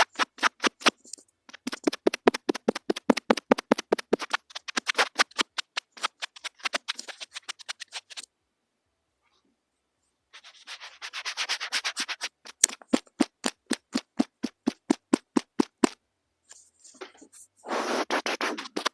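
Close-up scratching and rubbing on a mini microphone for ASMR: fast runs of sharp scratchy clicks, with a gap of about two seconds in the middle and stretches of denser rubbing about halfway through and again near the end.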